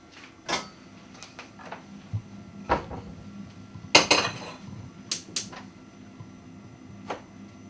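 A string of about ten short, sharp knocks and clatters, irregularly spaced, with the loudest pair about four seconds in.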